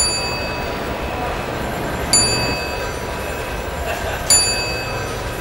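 A bell struck three times about two seconds apart, each stroke ringing out and fading, over steady background noise.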